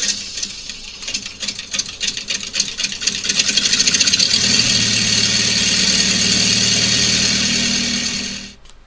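An engine sound effect: regular beats that speed up over the first few seconds, settling into steady running with a low hum, then cutting off abruptly near the end.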